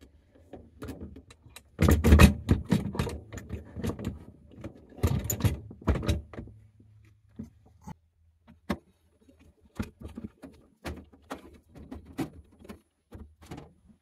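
Plastic clattering, knocking and clicking of a Whirlpool ice maker being hung on its mounting screws on the freezer wall and handled into place. There are two busy bursts of clatter, about two seconds in and again around five seconds, then scattered single clicks and knocks.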